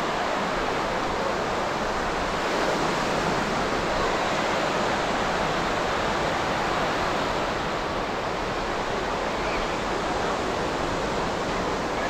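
Ocean surf washing onto a sandy beach, a steady, even wash of sound without distinct breaks.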